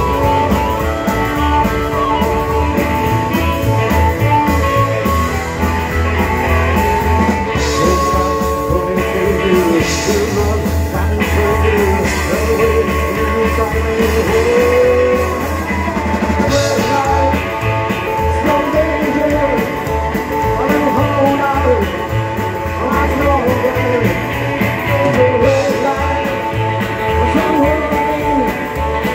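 Live rock and roll band playing at full volume: harmonica leading over upright bass, acoustic and electric guitars and a drum kit.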